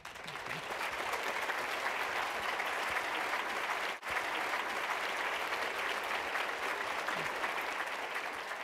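Audience applauding at the close of a speech, starting at once and holding steady, with a brief break about halfway and beginning to fade near the end.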